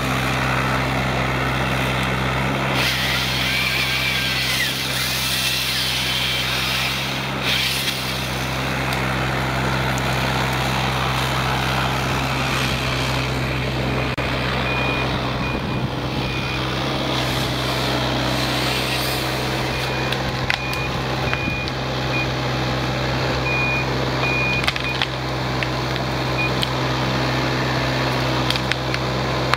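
Yanmar ViO mini hydraulic excavator's diesel engine running steadily under load. For several seconds near the start there is a rush of cracking and rustling as its saw-bar thinning head works through pine branches, and in the middle a high beeping comes and goes.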